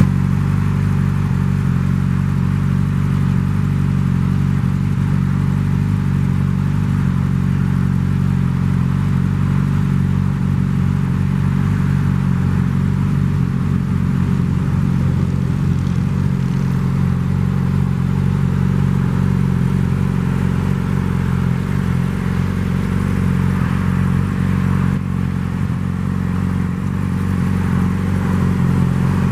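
2014 Yamaha R6's 600 cc inline-four idling steadily through an aftermarket Two Brothers Black Series exhaust, with no revving.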